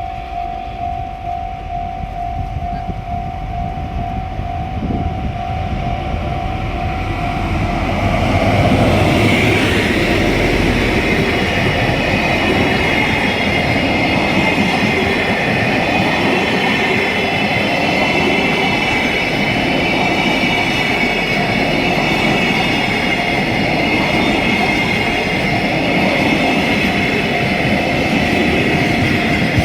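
Level crossing alarm sounding with a steady tone, then about eight seconds in a freight train led by a DF200 diesel locomotive passes close by, a long loud run of wheels clattering over the rails with a high ringing squeal above it.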